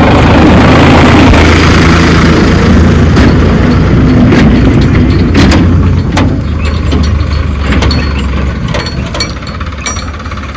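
Heavy diesel earthmoving machinery running, a strong low engine hum that eases after about six seconds. Sharp knocks sound several times from about three seconds in.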